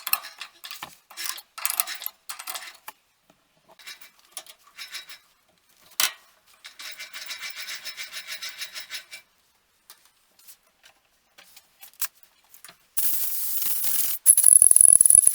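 Metal clinks and rattles of steel tools and the workpiece being handled at a metal lathe, with a quick run of regular ticks partway through. Near the end a steady hiss starts, then gets louder with a high whistle in it.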